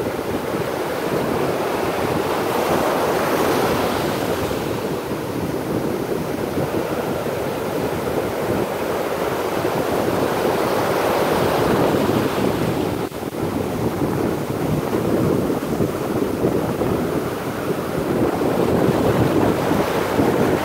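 Ocean surf breaking and washing up the beach, a steady rushing that swells and eases every few seconds, with wind buffeting the microphone.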